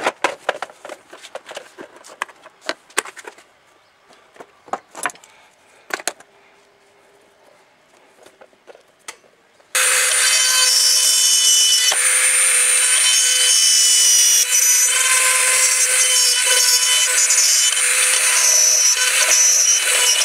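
Clicks and knocks of a plastic toolbox being handled. About ten seconds in, a small power drill starts and runs steadily with a high whine, boring small holes in a thin metal plate, then cuts off abruptly.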